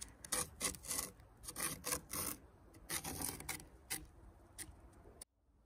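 A thin stick scraping letters into snow on the wooden slats of a bench: a run of short, uneven scratching strokes that cuts off abruptly near the end.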